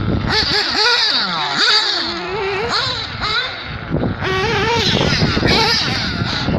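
Small nitro engine of a radio-controlled car revving up and down as it laps the track, its pitch sliding down and climbing again over and over.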